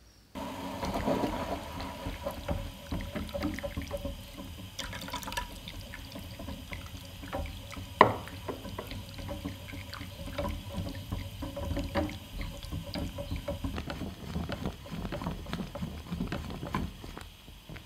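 Thick hot chocolate bubbling and popping in a saucepan on the stove, with one sharp knock about eight seconds in.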